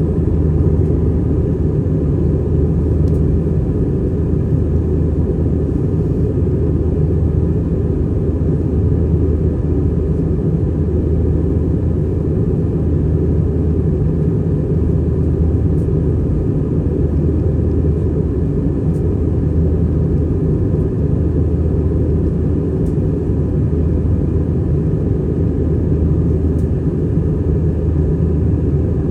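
Airbus A320-200 cabin noise heard from a window seat: the engines and airflow give a steady, even, low drone with no change in pitch or level.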